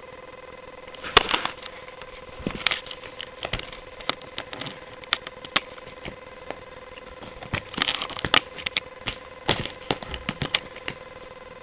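Irregular rustles, taps and sharp clicks of a cat pawing and scratching at a hand on bedding, over a steady electrical hum.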